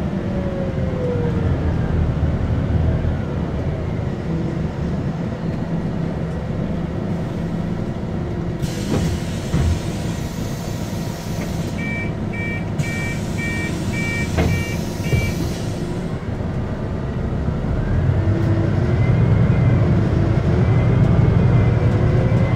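Cabin sound of a Scania CityWide CNG bus, its Scania OC09 nine-litre five-cylinder gas engine and ZF Ecolife automatic gearbox running steadily, with a falling whine near the start as it slows. In the middle comes a hiss of about seven seconds, with a run of about six short two-tone electronic beeps near its end; toward the end the engine grows louder with rising whines as the bus pulls away.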